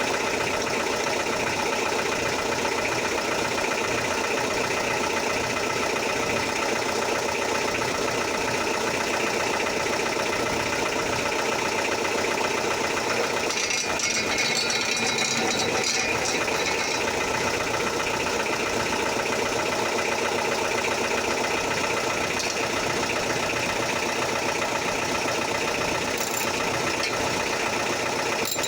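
Motorhome engine idling steadily through its newly fitted exhaust.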